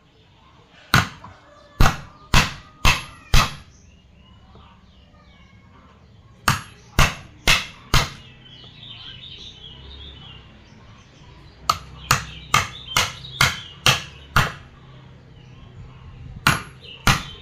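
Hammer striking wood in runs of four to eight sharp blows, about two a second, with pauses of a few seconds between runs.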